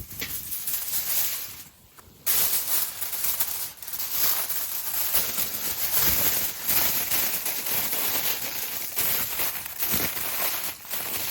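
Close, dense rustling and crinkling, with a brief pause about two seconds in.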